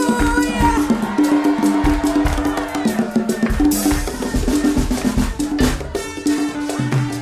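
Live band playing upbeat Ghanaian praise music, with busy percussion and drum kit over a repeating bass line.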